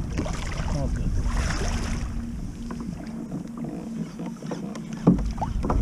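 Wind rumbling on the microphone and water sloshing around a kayak at sea, easing off for a moment, then coming back with a couple of knocks near the end.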